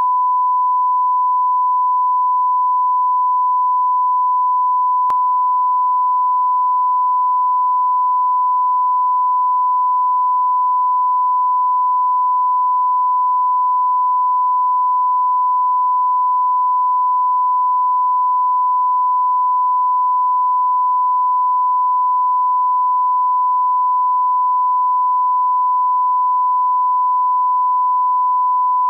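Steady 1 kHz line-up test tone, a pure unbroken sine beep at constant level, played under colour bars as a broadcast reference level, with a faint click about five seconds in.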